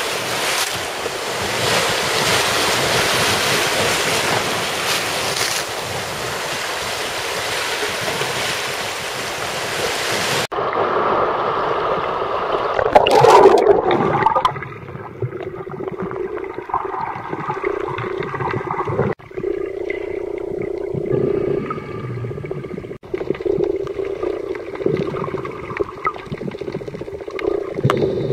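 Sea surf breaking and washing over shore rocks, a steady rushing hiss, for about the first ten seconds. It then cuts abruptly to sound heard underwater from a submerged camera: a loud muffled churn of water shortly after the cut, then muffled water sloshing with a steady hum and scattered small clicks.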